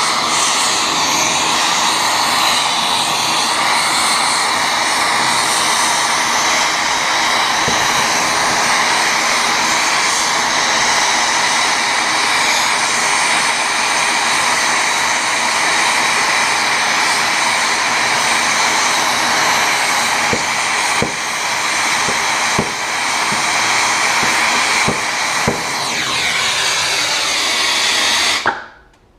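Plumber's torch burning with a loud, steady hiss while heating copper water-line fittings, then shut off suddenly near the end.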